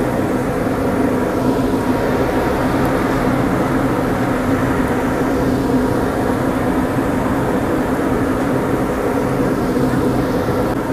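A batch of about a hundred pieces of tofu deep-frying in a large wok of hot oil: a steady frying noise over a constant low hum.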